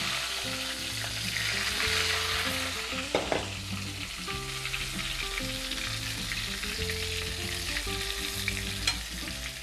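Marinated eggplant slices frying in hot oil in a stainless steel pan over medium-high heat, with a steady sizzle.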